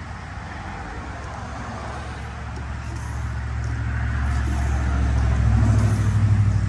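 A low, steady engine rumble that grows louder from about halfway through and peaks near the end.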